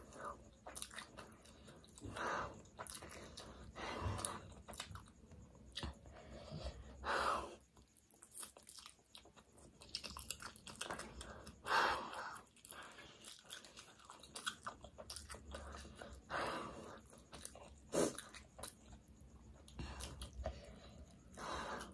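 Close-miked wet chewing and slurping of spicy instant fire noodles, with several louder slurps spread through.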